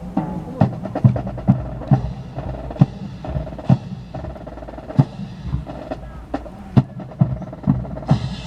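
Drums beating a steady march beat, about two strokes a second, over held musical tones.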